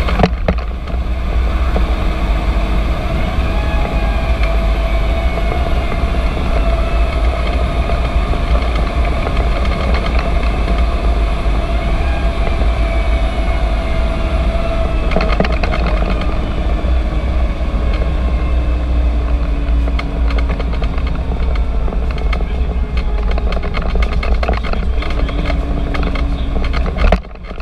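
Fire engine on the move: steady engine and road rumble, with a whine that drifts slowly in pitch as the truck's speed changes.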